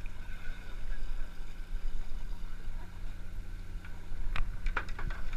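Steady low hum of the fishing boat's engine. A few sharp knocks come quickly one after another about four seconds in.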